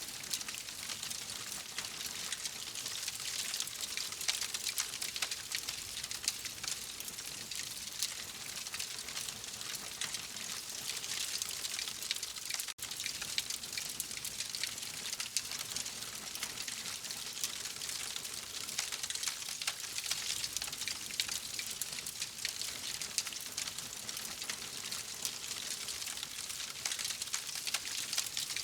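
Wood fire crackling steadily: a dense hiss of small pops and snaps, with a momentary dropout about thirteen seconds in.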